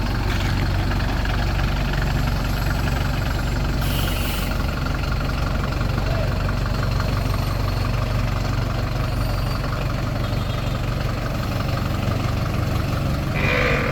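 Heavy 4x4 truck engine running steadily at idle, with a brief hiss about four seconds in.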